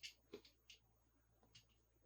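Faint clicks and light rustles of toys being handled during an unboxing: three short ticks in the first second, then a quieter one near the end.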